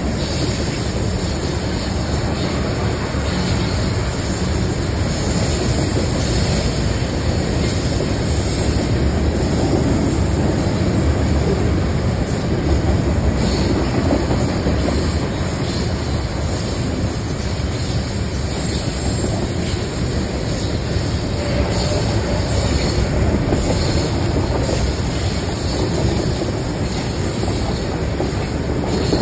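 Herzog ballast hopper cars, loaded with stone, rolling steadily past: a continuous noise of steel wheels running on the rails.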